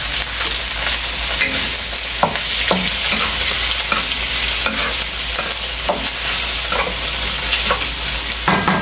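Chicken gizzards and hearts sizzling in hot oil in a nonstick wok, stirred with a wooden spatula that scrapes and taps against the pan now and then.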